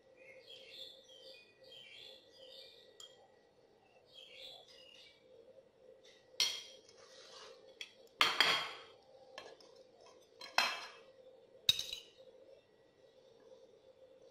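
A metal fork clinking against a glass serving bowl and a metal mixing bowl as noodle salad is dished out: four sharp clinks in the second half, each with a brief ringing tail.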